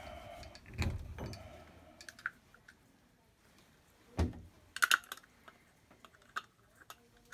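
Plastic shower valve cartridge being worked out of its brass valve body and handled: scattered light clicks and knocks of plastic on metal. The loudest are a knock about four seconds in and a quick pair of clicks just after.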